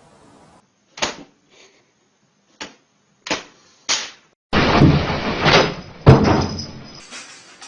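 Four sharp knocks spread over about three seconds, then a loud clattering bang-and-rattle lasting about two and a half seconds.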